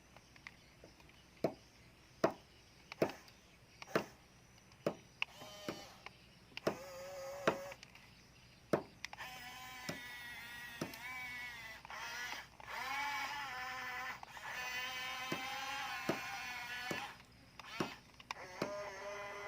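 Electric gear motors of a Huina 1550 remote-control excavator whining as the arm and grabber move, the whine wavering in pitch and lasting several seconds. Earlier come a series of sharp clicks about once a second.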